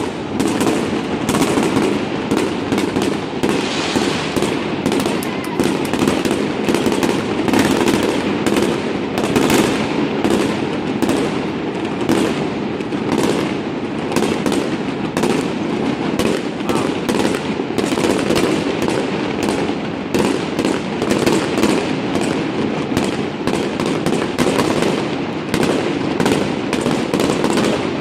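Fireworks display: a dense, unbroken run of bangs and crackles, about three a second.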